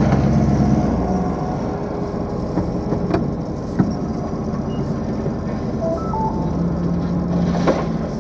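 Pickup truck engine running and tyres rolling as the truck drives, with a few short knocks and rattles.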